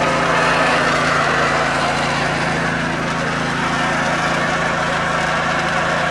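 A motor running with a steady hum under an even rush of water, as a 1000 L IBC tank is washed out and filled with water.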